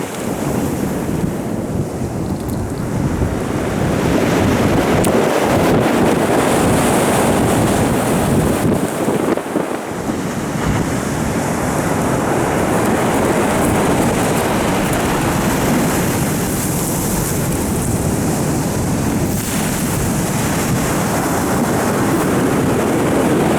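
Storm waves crashing and rushing on the shore, a continuous swelling surf, with strong wind buffeting the microphone.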